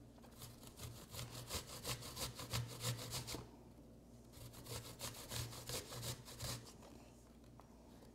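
An apple, skin on, being grated on a metal box grater: quick, rhythmic rasping strokes in two runs, with a short pause between them, stopping about two-thirds of the way through.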